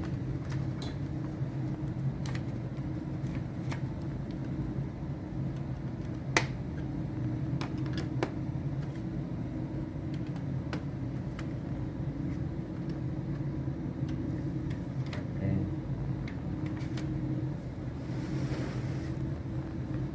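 Scattered sharp clicks and taps of the plastic clips and locks on a Samsung LED TV's screen frame being worked loose by hand, the loudest about six seconds in, over a steady low hum.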